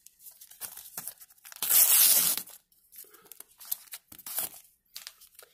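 A Topps sticker packet being torn open, one loud tear lasting about a second starting a little under two seconds in, with crinkling and rustling of the wrapper and stickers before and after.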